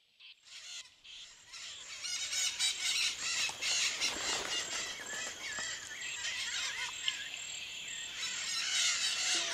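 Many birds chirping and calling together in a dense chorus. The chorus fades in from silence over the first couple of seconds.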